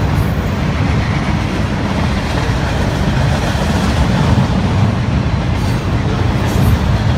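Loaded freight-train flatcars rolling past: a loud, steady rumble of steel wheels on rail.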